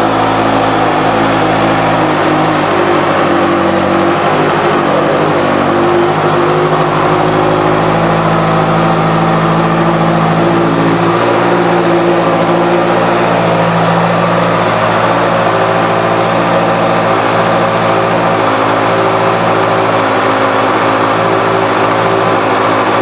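Honda CBR650F inline-four engine idling steadily through a Two Brothers Racing aftermarket exhaust.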